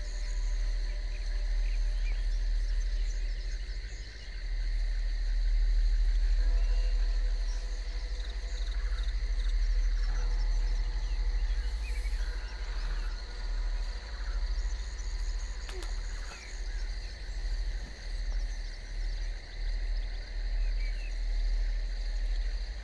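A low ambient film-score drone with held tones, swelling and pulsing about once a second in the second half, over steady insect chirring from the woods.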